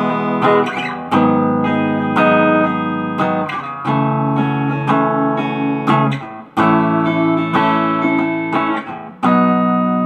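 Squier Bullet Telecaster electric guitar played through a Roland Cube amp with reverb switched on: a dozen or so strummed chords, each ringing on into the next.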